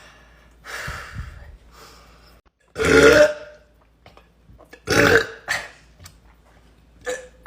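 A woman forcing up a series of burps: a soft airy one about a second in, two loud belches around three and five seconds, and a short one near the end.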